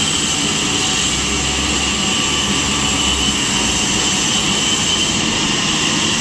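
Sawmill blade saw running steadily, an even, loud machine noise with a steady high tone above it.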